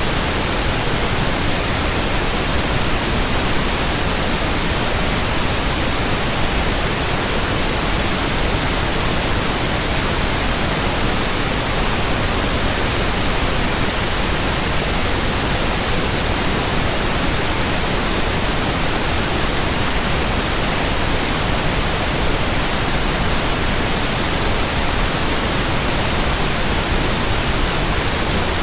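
Steady, unchanging white noise: an even hiss spread across all pitches.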